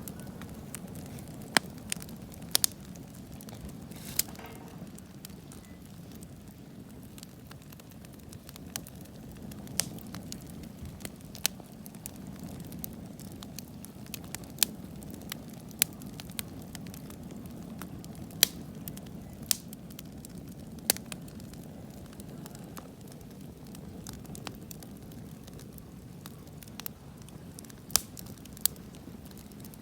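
Bonfire burning, a steady low rush of flame with sharp, irregular crackles and pops from the burning wood.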